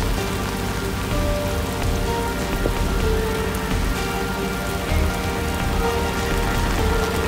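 Heavy rain pouring onto a flooded paved yard: a steady, dense hiss of drops splashing into standing water. A few faint steady tones sit beneath it.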